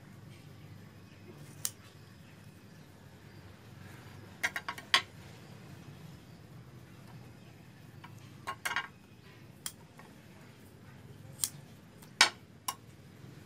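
Scattered sharp clicks and taps, some in quick clusters of two or three, from scissors, a kitchen knife and a roll of double-sided tape being handled on a tabletop while the tape is cut and stuck on.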